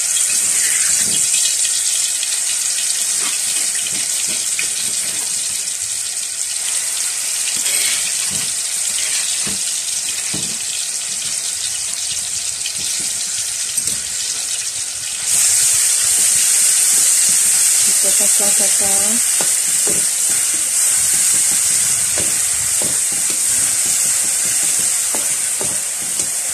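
Pounded chilli, belacan, shallot and garlic paste frying in hot oil in a wok: a loud, steady sizzle that starts suddenly as the paste hits the oil and gets louder again about halfway through.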